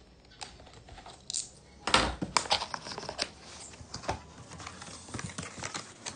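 Cardboard packaging handled by hand: the inner box sliding out of its sleeve and its flaps being opened, a run of scrapes, rustles and light knocks, loudest about two seconds in.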